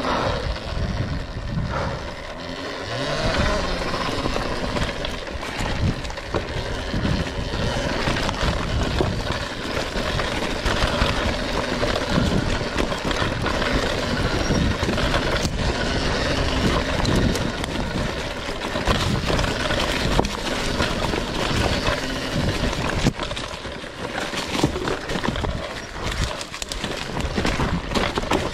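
RFN electric dirt bike ridden over a rough, rocky trail: continuous rumble and rattle from the bike and tyres, with frequent knocks as it hits rocks.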